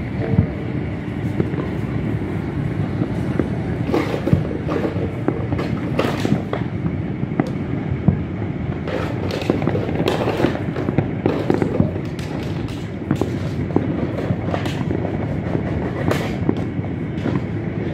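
Distant fireworks going off across a city: many sharp bangs and pops at irregular intervals over a steady low rumble.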